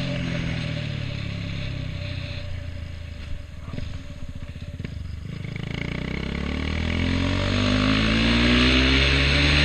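KTM 390 Duke's single-cylinder engine running on the road. Its pitch falls steadily as the bike slows and settles into a low, pulsing putter for a couple of seconds. It then climbs again as the bike accelerates away, with a steady wind rush over the microphone.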